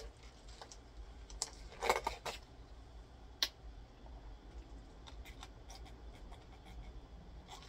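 Plastic lid pried off a fountain-drink cup: a short crackle about two seconds in and a sharp click a little later, then a few faint sips and swallows as the drink is gulped straight from the cup.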